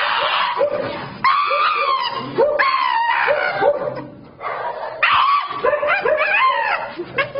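Shiba Inu screaming: long, high, wavering screams in three main bouts, with short rising yips between them.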